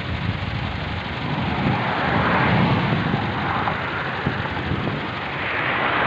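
Road traffic passing close by: a rush of tyre and engine noise that swells and fades, loudest about two and a half seconds in and building again near the end.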